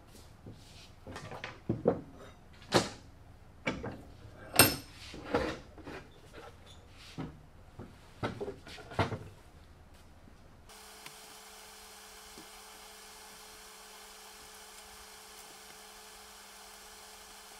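A wooden door being handled and shifted on a workbench: a dozen or so irregular wooden knocks and bumps over the first ten seconds or so. Then the sound cuts to a steady low hum.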